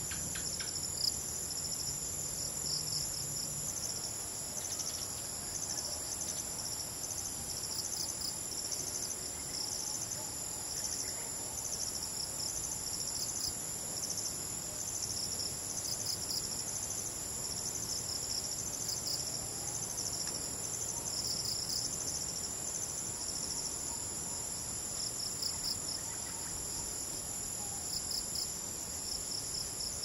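Night insect chorus of crickets: two steady, high continuous trills, with short chirping trills repeating every second or two just below them.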